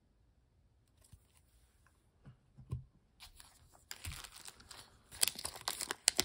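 Thin plastic wrapper on a stack of trading cards crinkling and tearing as it is pulled open by hand, starting about three seconds in and getting louder; before that, only a few faint taps.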